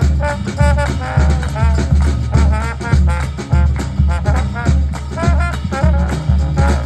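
High school brass band playing an upbeat swing-style tune: horns carry a bending melody over a heavy low bass pulse that keeps a steady beat of about two a second.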